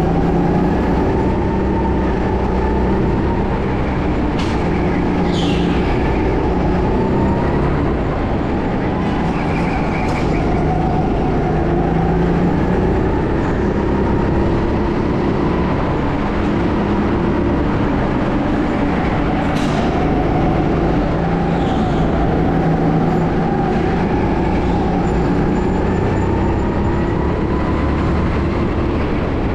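Go-kart motor running continuously, its pitch rising and falling as the kart speeds up and slows through the laps. A few brief sharp high sounds cut in now and then.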